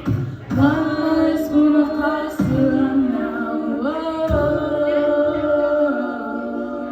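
A cappella voices singing in harmony, holding long chords that change about every two seconds, with a short low thump as each new chord starts.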